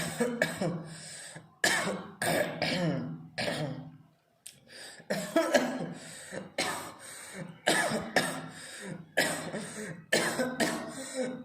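A person coughing over and over in a deliberate, drawn-out coughing run, about two harsh coughs a second, with a brief pause for breath about four seconds in.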